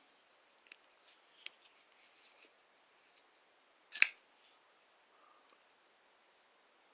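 Buck 252 Trunk folding pocket knife being worked in the hand. A few faint small clicks come first, then one sharp metallic snap of the blade about four seconds in.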